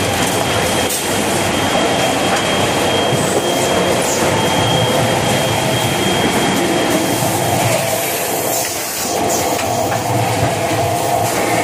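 Toilet paper and kitchen towel roll packaging and wrapping line running, its conveyors and mechanisms clattering steadily. A thin, high steady tone sounds over it and stops about seven seconds in.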